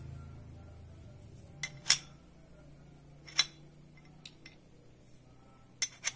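Metal parts clinking and tapping against each other a handful of times, sharp and separate, while a low hum fades out at the start.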